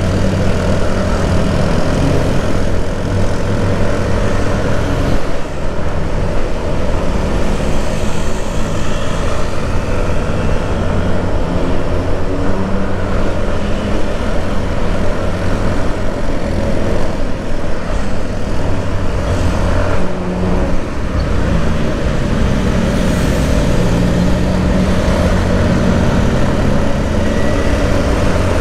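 Vehicle engine and road noise from travelling along a road in traffic: a steady, loud drone whose low engine note shifts up and down now and then.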